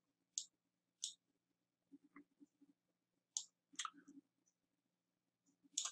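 Near silence broken by a few faint, short computer mouse clicks.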